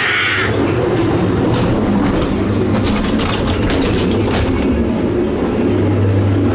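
Ghost train dark-ride car rumbling along its track, its wheels clacking and clicking irregularly, under a steady low hum that grows louder near the end.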